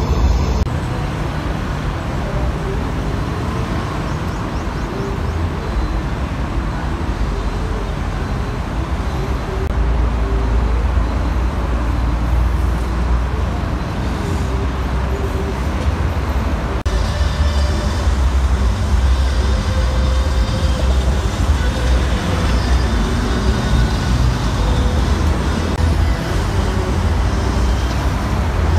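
Steady low rumble of heavy trucks and road traffic.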